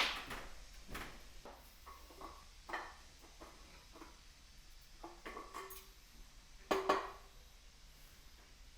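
Scattered metal clinks and knocks of hand tools on steel driveshaft parts during universal-joint disassembly. The loudest is a ringing metallic knock about seven seconds in.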